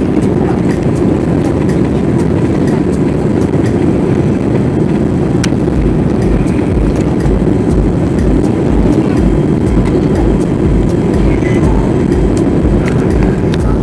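Steady rush of engine and airflow noise inside the cabin of a Boeing 787-8 on final approach, with a low, regular throbbing that comes in about halfway through.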